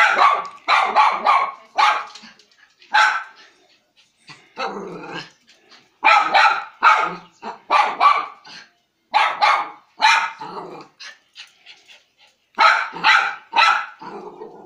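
Small dog barking repeatedly, in quick runs of three or four sharp barks with short pauses between them.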